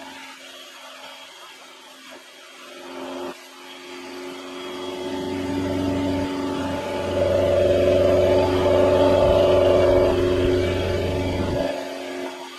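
Honda Scoopy scooter running as it is ridden, a steady engine-and-drive whine with a low rumble underneath. It grows louder from about four seconds in and eases off near the end.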